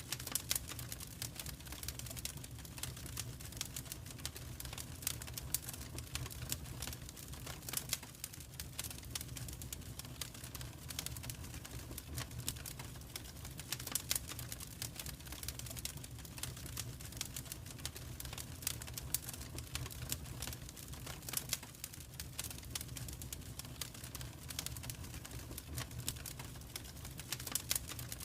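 Wood fire crackling in a fireplace: dense, irregular pops and snaps over a low rumble.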